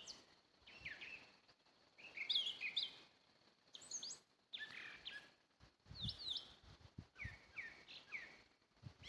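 A songbird singing short phrases of quick, high, slurred whistled notes, a new phrase about every second.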